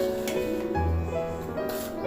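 Instrumental background music, held notes in a gentle melody, with a couple of short clicks near the start and near the end.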